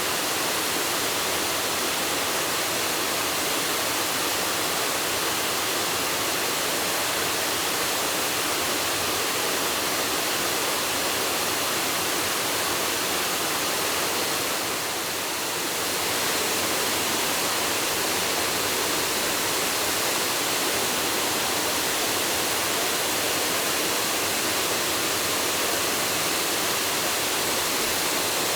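Waterfall rushing: a steady, dense wash of falling water that dips slightly for a moment about halfway through.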